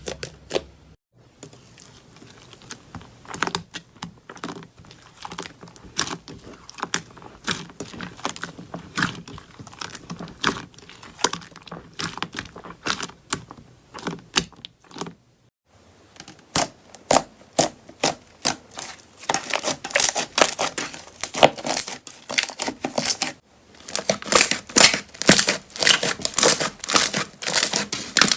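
Slime being squeezed and pressed by hand, giving dense runs of small crackling pops and clicks. The sound breaks off briefly three times, and the crackling is louder in the last part.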